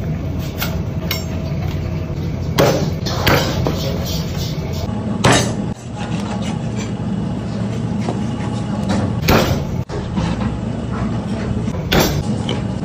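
A large chef's knife chopping crosswise through a big fish and its backbone onto a plastic cutting board. It gives about five sharp chops spread through the span, over a steady low drone.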